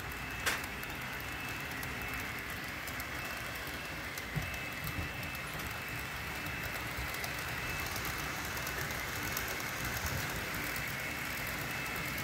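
Model train locomotives running on the layout's track: a steady high motor whine with a fine crackle of small wheel-and-rail clicks, and one sharper click about half a second in.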